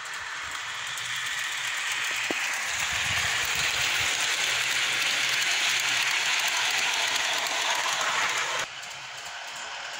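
Large-scale garden railway model steam locomotive and its coaches running past on the track, wheels and running gear clattering. It grows louder as the train nears, then drops off sharply about nine seconds in.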